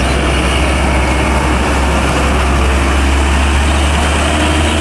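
Heavy Hino box truck's diesel engine running with a steady low rumble under an even hiss.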